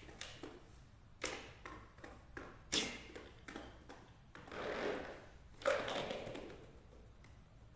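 Concert accordion played as a noise-maker: scattered clicks and taps from its keys and body, a swelling rush of bellows air about four and a half seconds in, then a sharper hit near six seconds that dies away over about a second.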